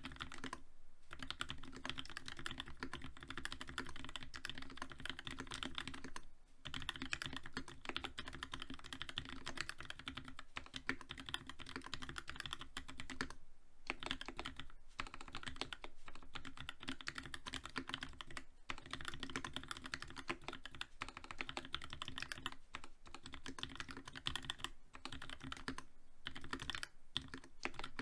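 Fast, continuous typing on a TX87 mechanical keyboard with a brass plate, lubed Gateron FEI linear switches with Cherry Black top housings and GMK keycaps, without sound dampening. Dense clacks with a few brief pauses.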